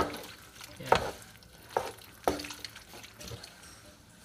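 Wooden spatula stirring udon noodles in a stone-coated nonstick pot, knocking against the pot about five times at uneven intervals.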